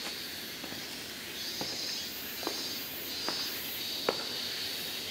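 Footsteps on a stone path, a step roughly every second, over a steady high insect drone that swells and fades.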